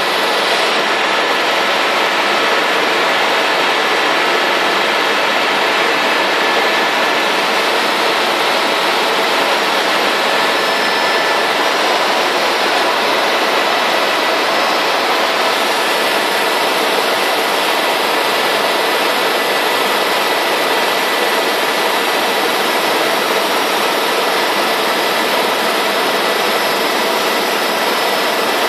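Helicopter cabin noise heard from inside the cockpit in flight: a loud, steady rush of engine and rotor with a few faint, steady whining tones on top.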